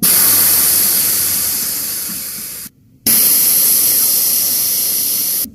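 Air hissing out of a Xiaomi M365 scooter's 8.5-inch pneumatic tyre through its valve as it is deflated. It comes in two releases: the first slowly fades as the pressure drops, then after a brief stop a little under three seconds in, a second steady hiss follows.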